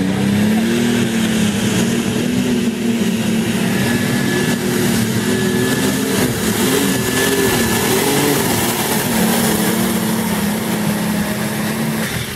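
Turbocharged engine of a limited light super pulling tractor running hard under full load as it drags a weight-transfer sled. The note holds high and steady, wavering slightly in pitch, then drops away near the end as the pull finishes.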